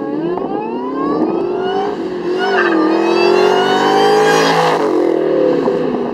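2003 Ford Mustang SVT Cobra's supercharged 4.6-litre V8, with a Borla exhaust and a smaller supercharger pulley, accelerating hard past the listener. Engine pitch rises, dips briefly at a gear change about two and a half seconds in, climbs again to its loudest as the car passes, then drops as it pulls away.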